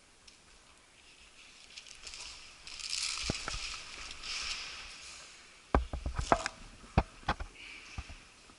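A hissing rustle through the first half, then a run of sharp, irregular clicks and knocks from a little past halfway.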